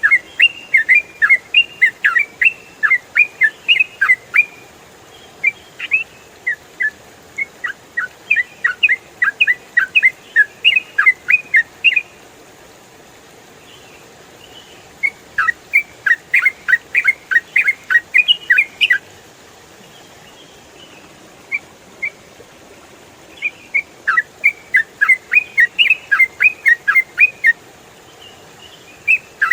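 Yellow-vented bulbul singing in rapid, chattering phrases of quick sweeping notes, several bursts of a few seconds each with short pauses between, over a faint steady background hiss.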